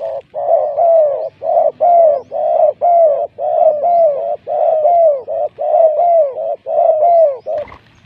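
Dove cooing: a steady, rhythmic run of about a dozen short arched coos, then a brief flutter of wings near the end as a bird takes off.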